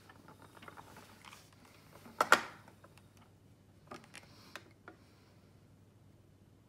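Handling noise from a hand carder and wooden spinning wheel: one sharp knock with a brief ring about two seconds in, then a few light clicks.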